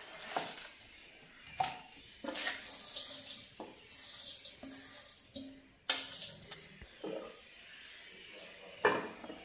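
Hands squelching and scraping wet lemon pickle around and out of a stainless steel bowl into a serving bowl, with clinks of the steel bowl against the rim and a sharp knock near the end as a lid is set on the bowl. Light background music runs underneath.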